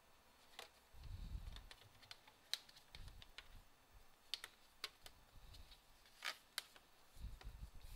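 Faint scattered clicks and light taps as hands press around the edges of a Lenovo Yoga 730's metal bottom cover, seating it back in place, with a few low dull thumps of the laptop being handled about a second in and near the end.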